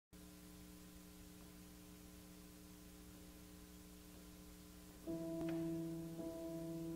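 Concert grand piano: a few soft held tones, then about five seconds in a much louder chord comes in and the playing goes on.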